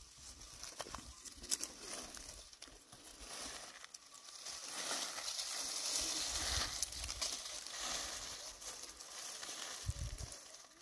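Rustling, crinkling noise with a few sharp clicks; the rustling swells up in the middle and then dies down.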